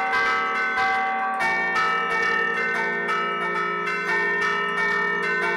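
Church bells played from a bell keyboard (suono a tastiera): the bells hang still and their clappers strike them in a quick tune, about two or three strokes a second, each note ringing on under the next.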